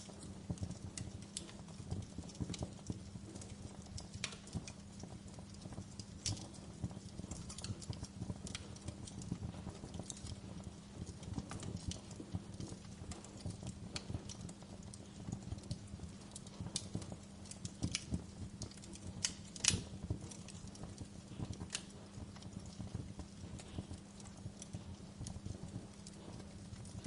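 Wood fire burning in a fireplace, crackling with a steady low rumble and frequent irregular sharp pops, the loudest about twenty seconds in.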